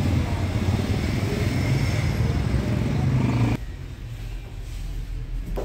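A vehicle running: a steady low rumble that cuts off abruptly about three and a half seconds in, leaving a quieter low hum.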